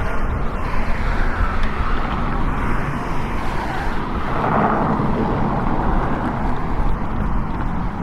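Outdoor street ambience: a steady wash of traffic noise, swelling once about halfway through as a vehicle goes by.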